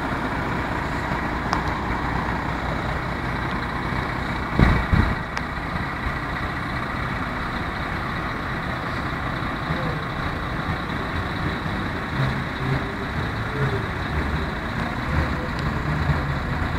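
Steady rumble of a row of parked lorries idling, with one loud thump about four and a half seconds in.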